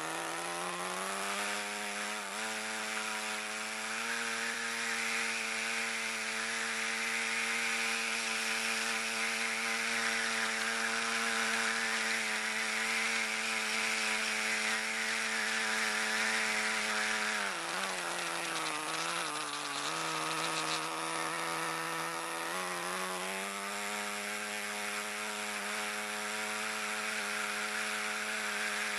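Small engine running steadily at high speed with a buzzing note. It slows about 17 seconds in, wavers for a few seconds, and speeds back up about 23 seconds in.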